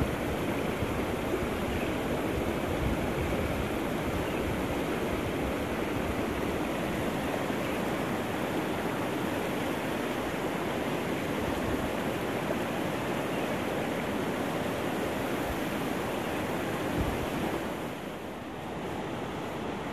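River water flowing steadily, a constant rushing noise that eases slightly near the end.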